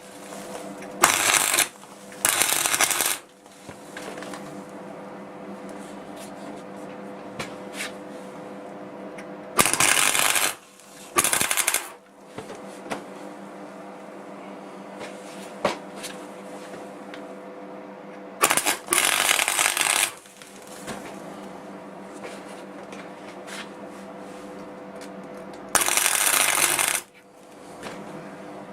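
Electric arc welder laying short tack welds to fix a steel lever onto a seized bolt head: about six separate bursts of welding, each lasting about a second, with pauses between them. A steady hum runs underneath.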